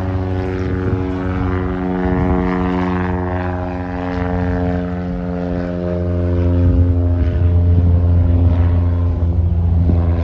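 Cessna 150L's four-cylinder Continental O-200 engine and propeller at climb power, a loud, steady drone whose pitch falls slightly over the first few seconds as the plane passes and climbs away.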